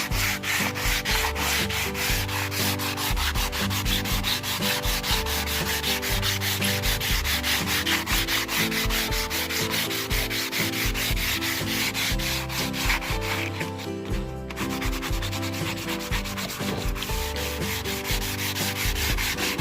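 Rapid back-and-forth scrubbing on a rusty steel machete blade, about five strokes a second, with a brief pause about fourteen seconds in.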